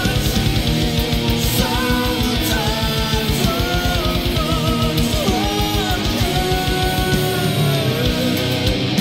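Heavy metal music: distorted guitars and a gliding lead melody over rapid, even kick-drum strokes, with the fast kick pattern dropping out about seven seconds in.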